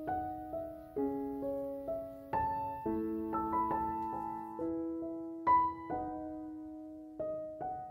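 Background music: a gentle solo piano melody, its notes struck a few per second and left to ring and fade.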